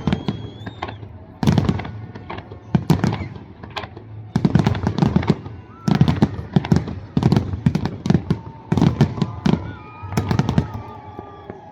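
Aerial firework shells bursting in quick clusters, sharp bangs about once a second or faster, some in rapid strings like crackling volleys.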